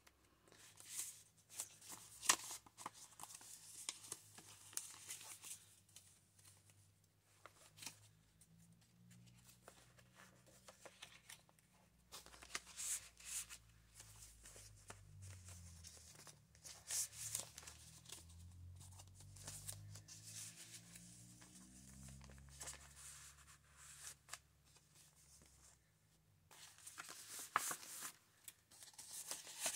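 Pages of a thick handmade paper junk journal being turned and handled: faint, scattered rustles and flicks of paper and card, with a soft low hum underneath.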